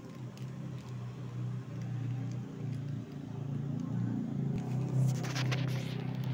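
A steady low engine hum, getting a little louder after about two seconds, with a brief rustle about five seconds in.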